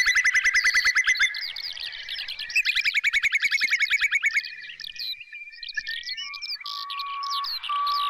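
Whimbrel calling: two rapid trills of evenly spaced whistled notes, the first stopping about a second in and the second running from just under three seconds to about four and a half seconds, with fainter high chirps of other birds behind. Near the end a steady whistled note starts repeating.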